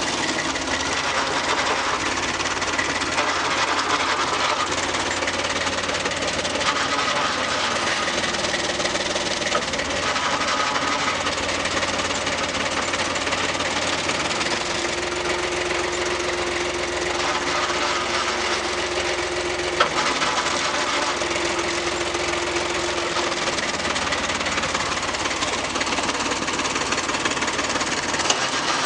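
Foton 254 tractor's diesel engine running steadily with a knocking, rattling mechanical noise from the transmission or clutch; a clear held tone comes in about halfway, breaks off briefly and returns, then stops. This is the noise heard while the clutch pedal is pressed to disengage the transmission, and gone when the pedal is up or pressed further to free the PTO clutch, which the owner guesses is an input shaft wobbling inside the other or in the throw-out bearing tube.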